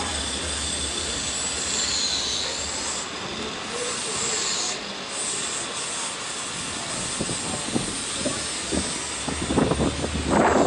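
Steady rushing of wind and rolling noise from a moving bicycle, with faint high-pitched squealing glides in the first half and a cluster of knocks and rattles near the end.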